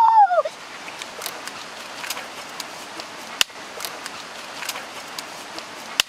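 A boy's short, high-pitched yell right at the start, followed by a steady rush of stream water with scattered sharp clicks, one louder click about three and a half seconds in.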